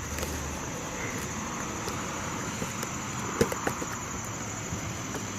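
Cardboard tool box being handled and pried at to get it open, a steady rustling scrape with a couple of light clicks about three and a half seconds in.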